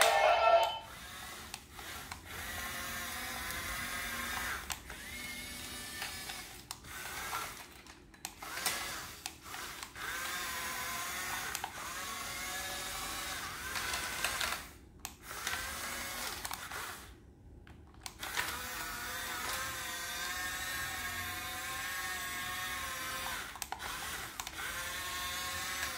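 Small electric motors and plastic gearboxes of toy remote-control excavators whirring with a wavering whine, in runs of a few seconds broken by short pauses.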